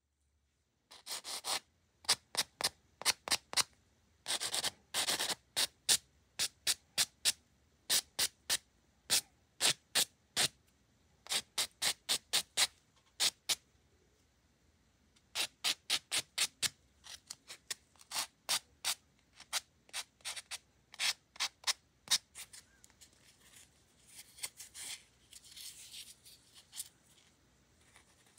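White sanding block rubbed in short, quick strokes across natural fingernails, a few strokes a second in runs with a pause about halfway, scuffing the nail surface so the gel will hold. Near the end the strokes give way to a softer rustling rub, a wipe worked over the nails.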